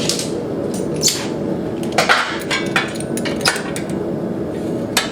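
Hammer blows on a hot steel flat bar, bending it around a curve: about seven irregular strikes, the loudest a close pair about two seconds in, over a steady background noise.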